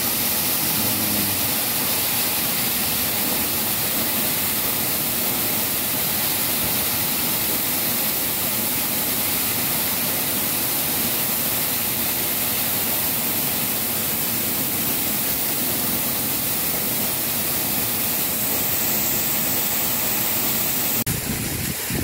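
Steady rush of a waterfall close by, an even roar of falling water; the sound changes abruptly about a second before the end.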